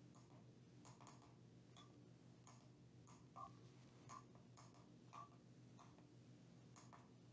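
Near silence, with faint, irregular light clicks and taps, about two a second, from gloved hands handling a plastic weighing boat on a small electronic scale, over a faint steady hum.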